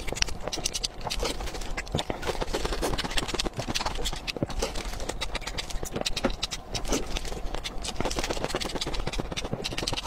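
Close-miked chewing of hard-boiled eggs coated in thick spicy sauce: wet smacking and a rapid run of small mouth clicks.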